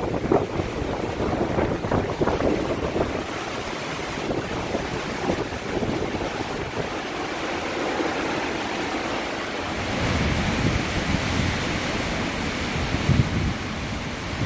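Hurricane-force wind rushing in gusts through trees and buffeting the phone's microphone, with heavier low rumbling gusts from about ten seconds in.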